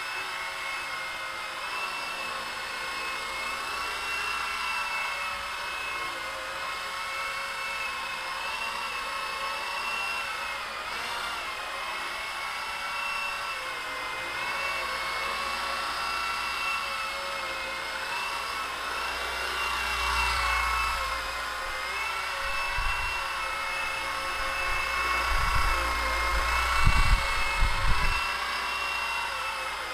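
Small electric radio-controlled Blade helicopter flying: a steady high motor-and-rotor whine that wavers up and down in pitch, with a few low thumps and rumbles near the end.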